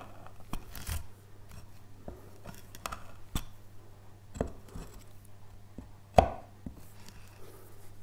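Hand carving blade cutting and paring into wood: short sharp cuts and scrapes at irregular intervals, the loudest about six seconds in, over a steady low hum.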